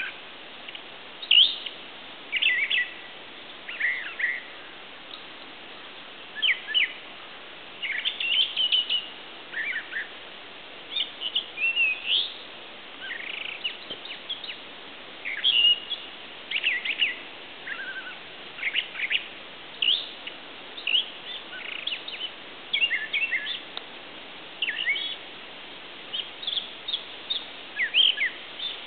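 Songbirds chirping and calling: short, sharp notes and quick sweeps, a few every couple of seconds at irregular spacing, over a steady faint background hiss.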